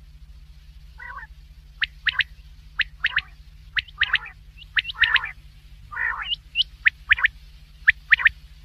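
Common quail calling: short, sharp, high calls, mostly in quick pairs and triplets, mixed with a few hoarse, buzzy lower calls, over a steady low hum.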